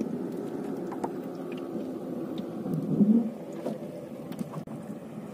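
Small fishing boat's motor running steadily with a low hum, swelling briefly louder about three seconds in, with faint ticks over it.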